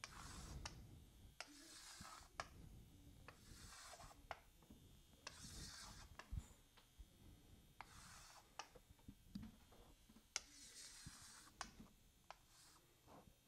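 Chalk drawing long straight lines on a chalkboard: about six faint scraping strokes, each about a second long, with short sharp taps between them.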